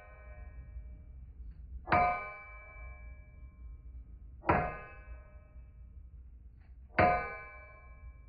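Forging hammer striking steel on an anvil: three single blows about two and a half seconds apart, each ringing out briefly.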